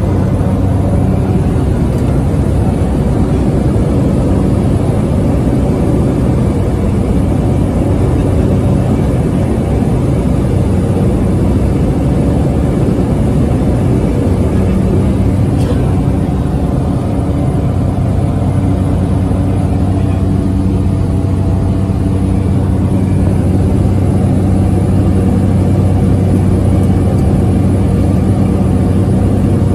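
Cabin noise of a small propeller aircraft in cruise flight: the engine and propeller make a loud, steady drone with a low hum, heard from inside the passenger cabin.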